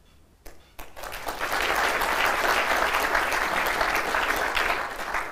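Audience applause: a couple of lone claps about half a second in, swelling within a second into steady clapping that thins out near the end.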